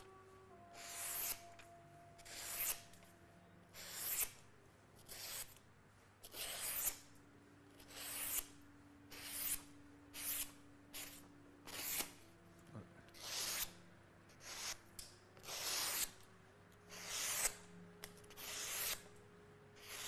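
A freshly sharpened Japanese kitchen knife slicing through a hanging sheet of paper to test its sharpness: a soft, hissing swish with each cut, repeated over and over at roughly one cut a second.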